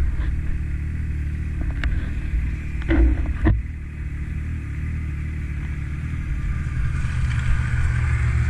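Snowmobile engines running, with a couple of sharp thumps about three seconds in. Near the end a second snowmobile, an Arctic Cat, comes up alongside and its engine gets louder.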